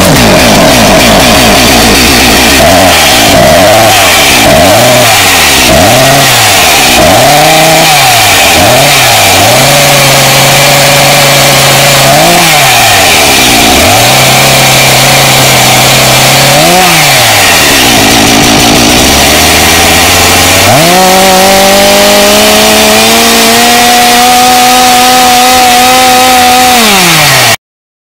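Small petrol engine revved again and again, each blip rising and falling in pitch. About three quarters of the way through it climbs to a high rev and holds there for several seconds, then drops away and cuts off suddenly.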